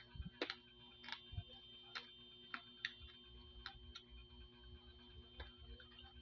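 Quiet eating sounds: about ten scattered sharp clicks and smacks at uneven intervals as the fried rabbitfish and rice are picked apart by hand and eaten. A faint steady whine runs underneath.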